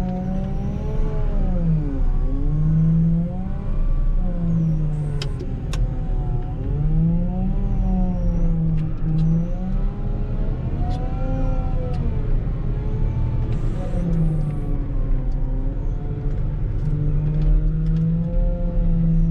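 Volvo L60H wheel loader's diesel engine working, its revs rising and falling every couple of seconds as the loader plows snow, with a few light clicks scattered through.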